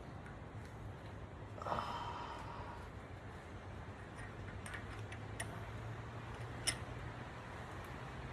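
Light handling noises of small metal parts: a short scuffing rustle about two seconds in and a few sharp clicks later on, over a low steady hum.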